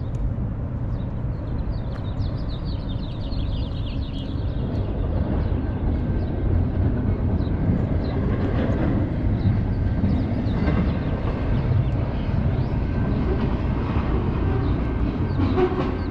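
Steady low rumble of traffic and street noise, with a run of faint high chirps a couple of seconds in.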